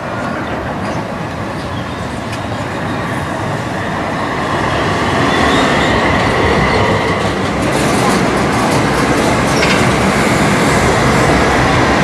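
Articulated street tram running past close by on street rails, its noise growing steadily louder. A thin steel-wheel squeal on the rails comes in about halfway through.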